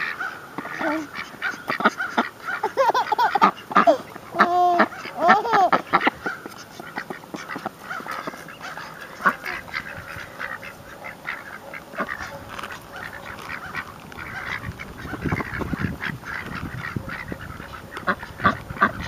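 Domestic ducks quacking, with a bunch of loud, arching calls in the first six seconds and scattered quieter calls after. Short faint clicks run under the calls.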